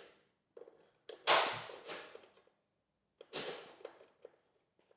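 Mechanical clunks and clicks as the piano-key cassette controls of a late-1970s JVC RC-636LB boombox are pressed and released, the loudest about a second in and another past the middle. No motor whirr follows: the tape motor is not running, which the owner suspects is jammed.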